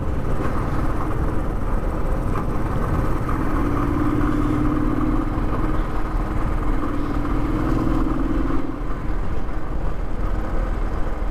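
Motorcycle engine running at a steady cruise, heard from the rider's seat: running smoothly, in the rider's words like butter. A steadier engine note stands out for a few seconds in the middle.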